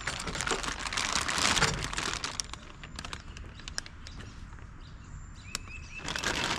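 Rustling and crinkling from hands handling material for the first two seconds or so, then a few light clicks and a brief bird chirp near the end.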